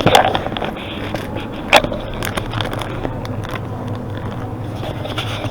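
Steady background hum and murmur of a convenience store, with a short clatter at the start and a single sharp knock a little under two seconds in.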